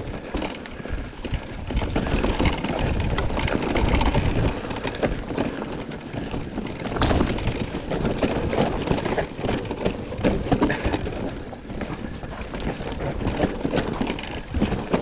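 Electric mountain bike descending a rough trail: tyres rumbling over rock and gravel, with the bike rattling and knocking over the bumps and wind buffeting the microphone. One sharper knock comes about seven seconds in.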